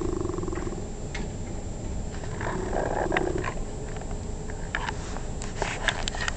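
A person snoring in their sleep: a buzzing, rattling snore at the start, then a second one about two and a half seconds in.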